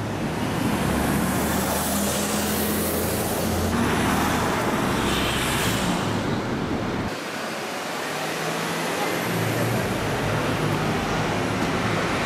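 Busy street traffic: a double-decker bus's engine running as it pulls past, over the steady noise of cars. About seven seconds in the sound changes abruptly to lighter passing traffic.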